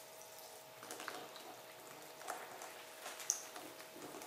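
Coffee poured into a thick cocoa, sugar and margarine mixture and stirred in: faint wet squelching and stirring with light scattered clicks, and one sharper click about three seconds in.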